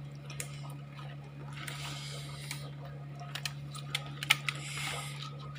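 A rubber-gloved hand pushing fish and rice down into a plastic jar: soft rustling and a few sharp clicks and taps against the jar, loudest a little past four seconds in, over a steady low hum.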